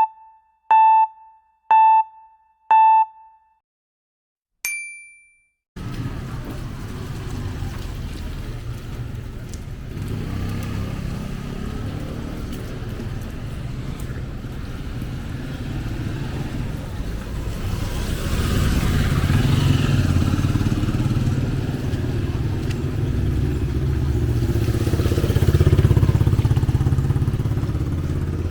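Four short electronic beeps about a second apart, then one higher-pitched beep, like a countdown. After a brief silence comes continuous street traffic: vehicle and motorcycle engines running with a low rumble that grows louder later on.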